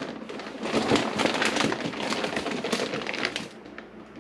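Plastic packaging crinkling and rustling as it is handled, a dense crackling that tapers off about three and a half seconds in.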